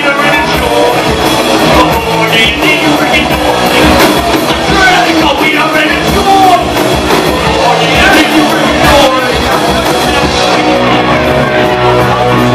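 Live rock band playing loud: electric guitars and drums with a singer's vocals over them.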